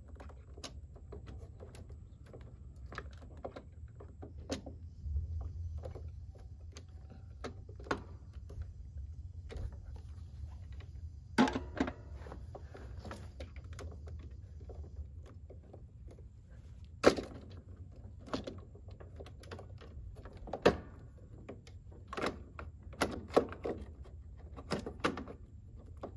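Irregular clicks, taps and sharp knocks of stiff electrical wires being bent and pushed around inside a metal breaker panel, over a low steady rumble. The knocks come thicker near the end.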